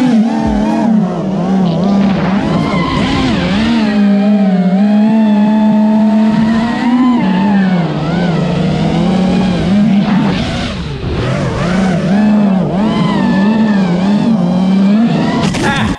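FPV racing quadcopter flying, its motors and propellers giving a loud buzzing whine whose pitch keeps rising and falling as the throttle changes.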